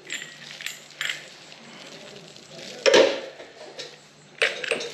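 Metal brush-cutter parts being handled during assembly: a few short clinks and knocks, the loudest about three seconds in and a small cluster near the end.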